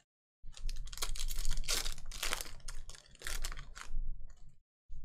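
Silver foil wrapper of a 2020 Panini Contenders Football hobby pack being torn open and crinkled by hand: dense crackling for about four seconds.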